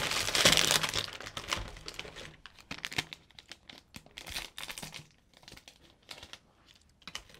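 Foil-lined cookie wrapper being torn open and crinkled. The crackle is dense and loud for the first couple of seconds, then thins to scattered lighter crinkles.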